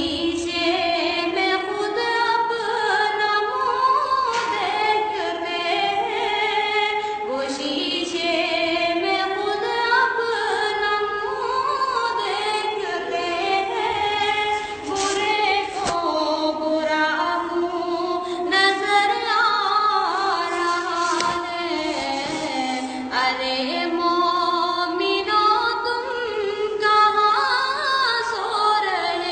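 A young girl singing a naat, a devotional song in praise of the Prophet Muhammad, solo and without instruments, in long ornamented phrases that glide up and down with short breaths between them.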